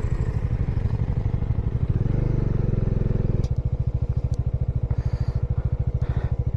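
Bajaj Dominar 400's single-cylinder engine running as the motorcycle rides along, its note briefly louder and a little higher about two seconds in, then easing back a second and a half later.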